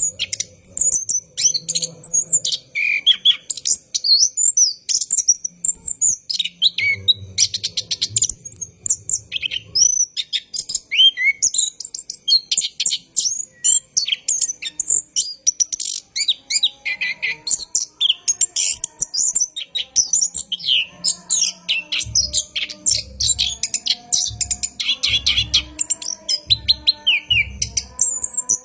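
Orange-headed thrush (anis kembang) singing a long, unbroken run of rapid high chirps and warbles. A low, evenly repeating pulse joins in the background in the last third.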